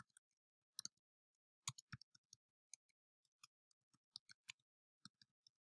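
Faint, irregular clicks of computer keyboard keys as a password is typed, about a dozen keystrokes spread unevenly.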